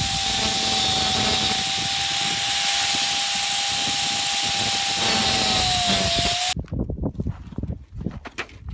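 Angle grinder with a cutting wheel cutting welded-wire fencing: harsh grinding noise with a steady high whine, which sags slightly just before the grinder stops about six and a half seconds in. Scattered clicks and rattles of the wire mesh follow as the roll is stepped on.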